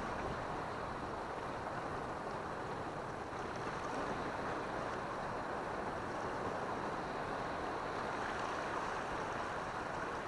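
Steady, even wash of sea surf along a rocky shore, with no separate strokes or tones.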